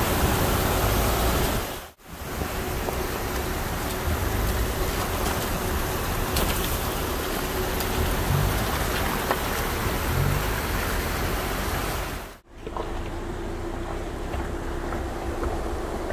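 Rushing mountain creek water mixed with the steady running of a vehicle driving a dirt road beside it. The sound cuts out abruptly twice, about two seconds in and again about twelve seconds in.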